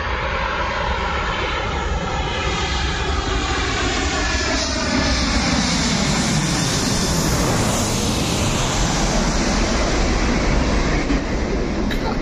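Twin-engine jet airliner on landing approach passing low overhead. The loud engine noise carries a whine that falls steadily in pitch as it comes over, then settles into a broad rumble as it moves away toward the runway.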